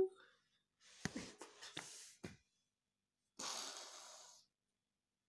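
Soft breathy sounds: a few short sniffs or snorts with small clicks about a second in, then one longer breath out a little past the middle.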